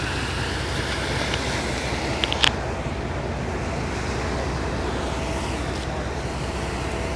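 Steady low rumble of a ferry under way, with wind and water noise across the microphone; a few sharp clicks about two and a half seconds in.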